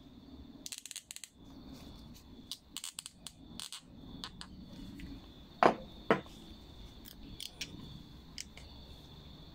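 Light clicks and taps of the small plastic jet and nozzle piece of a Briggs & Stratton 500E carburetor being handled and turned in gloved fingers, with two sharper clicks about halfway through.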